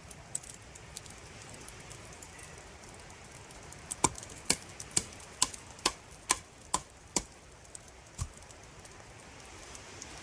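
A tool striking wood: a run of about eight sharp knocks, roughly two a second, starting about four seconds in, then one duller knock a second later.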